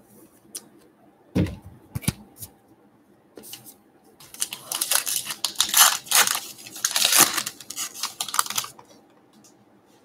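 A baseball card pack wrapper being torn open and crinkled for several seconds, after a couple of sharp knocks on the table about a second and a half in.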